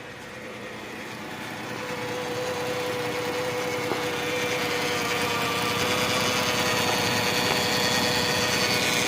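2013 Dodge Grand Caravan's 3.6-litre V6 running with a steady whine, growing louder over the first few seconds and then holding. The whine is the unidentified noise from where the transmission and engine meet, which gets louder with acceleration.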